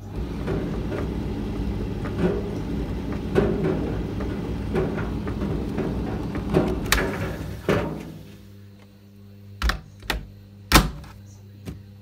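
Candy Smart Touch tumble dryer running a service-mode test: a loud rumble with irregular knocks for about eight seconds, then it stops, leaving a steady electrical hum, followed by a few sharp clicks.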